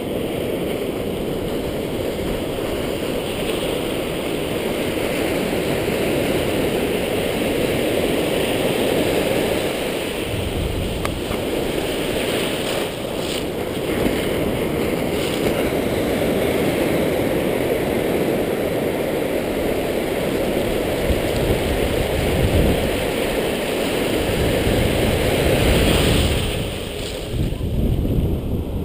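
Ocean surf washing steadily over shallow beach water, a constant rushing hiss, with wind buffeting the microphone in a few low rumbles, the strongest near the end.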